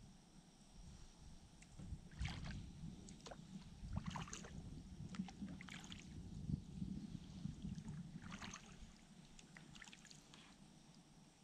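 Kayak paddle strokes in calm river water: short splashes and drips about every two seconds over a low, steady rumble.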